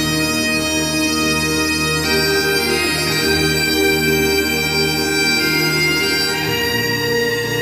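Instrumental music: a slow melody of held notes over a steady low drone.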